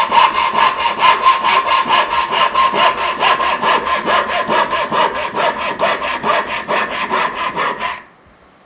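A freshly hand-filed Disston backsaw cutting across a wooden board in quick, even back-and-forth strokes. The sawing stops suddenly about eight seconds in.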